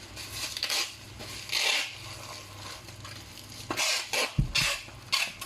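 Handling noise: several short scrapes and rustles, with a low thump a little past four seconds in, over a faint steady low hum.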